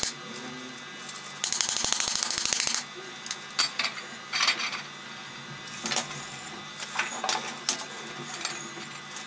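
A short burst of MIG welding arc crackle, like a tack weld, lasting about a second and a half, followed by scattered light metallic clinks and taps on steel.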